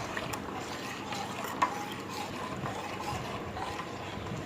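Custard mixture of milk, sugar and custard powder being stirred in a pan on a low flame, with a utensil scraping and knocking against the pan: small clicks throughout and one sharper clink about a second and a half in. The mixture is still thin and is being stirred continuously so it thickens without catching.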